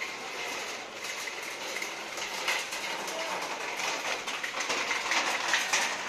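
Steady outdoor street noise, a dense hiss with scattered clicks that grows louder toward the end.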